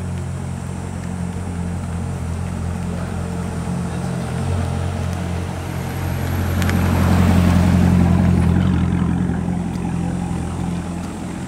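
A car engine running steadily at idle. It swells louder for a couple of seconds around the middle, then settles back.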